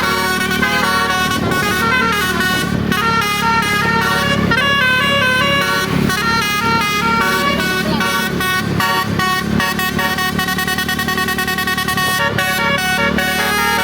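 Bus telolet horn, a Basuri multi-trumpet air horn, playing a fast tune of stepped notes that turns into a quick repeating run in the second half, over a low vehicle rumble.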